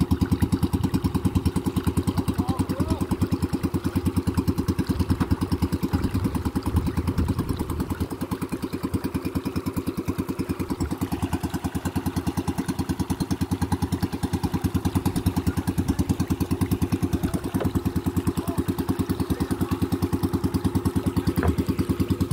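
Outrigger pumpboat's engine running steadily with a rapid, even beat, dipping a little in level about midway.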